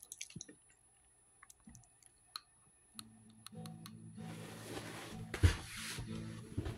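Scattered sharp clicks and rustling handling noise, then a faint steady low hum from about three seconds in.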